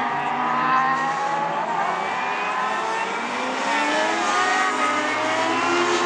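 Predator's 1000 cc prototype race car's engine running hard on track as the car comes past. The engine note sags over the first couple of seconds, then climbs steadily from about halfway through as the car accelerates.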